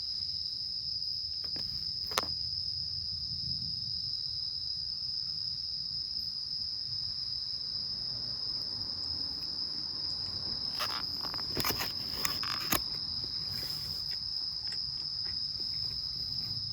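Crickets and other autumn insects chirring in a steady, high-pitched trill, with a few light clicks and knocks about two seconds in and again around eleven to thirteen seconds.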